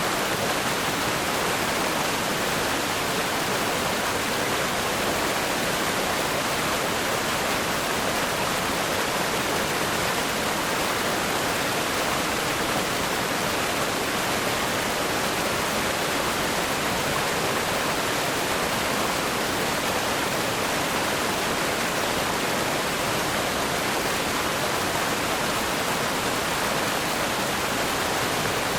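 River rapids rushing over rocks: a steady, even hiss of fast-flowing water, bright rather than rumbling.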